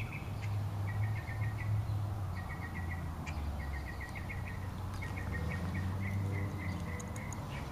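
A low rumble on the microphone, with short trills of quick chirps repeating about once a second in the background.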